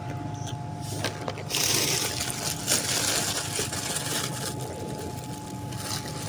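Crinkling and rustling of a thin plastic bag being handled close to the microphone, starting about one and a half seconds in, over a steady low hum.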